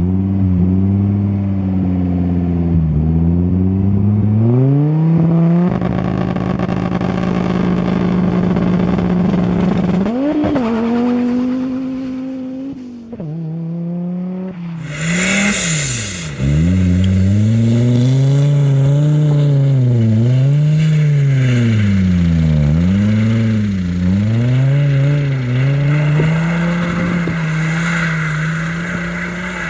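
Audi 2.2-litre turbocharged five-cylinder engines revving hard. First the revs are held high with a few dips and a brief rise about ten seconds in. After a cut about 13 seconds in, the revs rise and fall over and over, about once a second.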